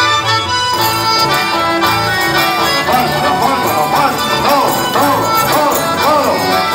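Live Argentine folk band playing with amplified accordions carrying the tune over acoustic guitar and electric bass, with a steady, repeating bass line.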